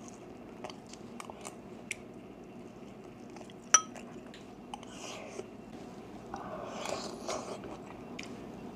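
Close-miked eating: utensils clicking against a ceramic rice bowl, with one sharp ringing clink a little under four seconds in, and soft chewing of rice and betel-leaf beef rolls.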